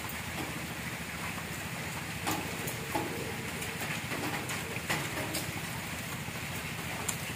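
Steady low background hum and hiss with scattered light clicks and rustles of people eating, handling leaves and food at the table.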